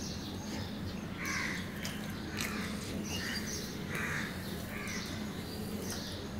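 A crow cawing over and over, about a caw every second from about a second in until near the end. Under it are soft chewing and the sound of fingers working rice on a steel plate, with a steady low hum.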